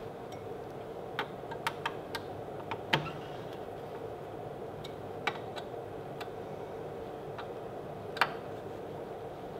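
Irregular metal clicks and taps from a hex screwdriver and workpiece clamps as a wood board is clamped to a CNC machine's bed, the sharpest about three seconds in and near the end, over a steady hum.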